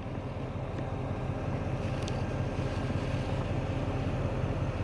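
Steady low rumble of a motor vehicle's engine or passing street traffic, slowly getting a little louder.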